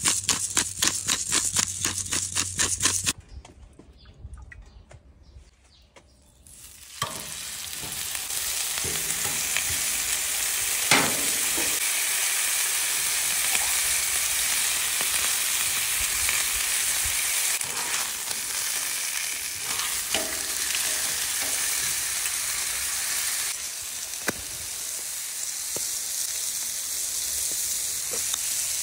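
Ribeye steaks sizzling steadily on a hot flat-top griddle, a loud even hiss that starts about seven seconds in. Before it come about three seconds of rapid rhythmic clicking and then a short quieter stretch.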